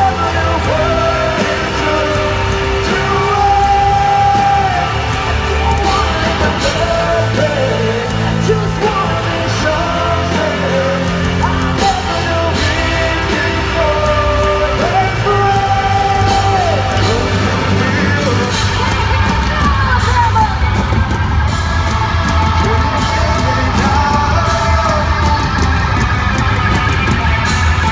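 Live heavy rock band with male and female vocalists singing and shouting over distorted electric guitars, bass and drums. The vocals thin out in the last third, leaving guitars and pounding drums.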